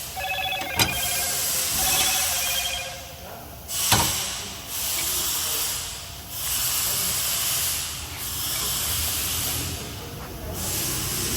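Pressurised air hissing in repeated bursts of one and a half to two seconds with short breaks between them. Two sharp clicks come about one second and four seconds in, and short runs of quick high chirps come near the start.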